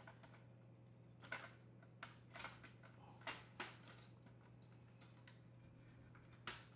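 A handful of faint, short clicks and taps, spread out with pauses between them, over near silence.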